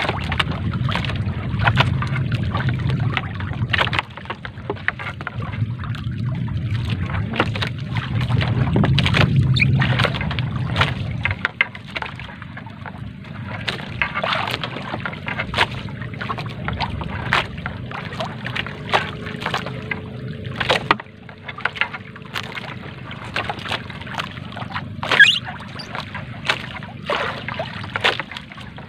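Wet fishing net hauled by hand over a boat's bamboo and wooden side rail, with frequent sharp knocks and taps against the rail and water dripping and sloshing. A low rumble runs under it and drops away about eleven seconds in.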